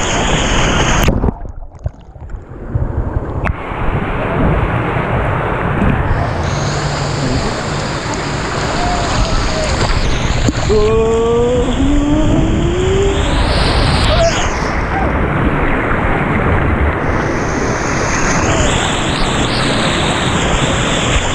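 Rushing, splashing water of a tube ride's fast-flowing channel, close to the microphone and mixed with wind on it. About a second in, the sound drops and goes muffled for about two seconds, and near the middle a voice lets out a short rising call.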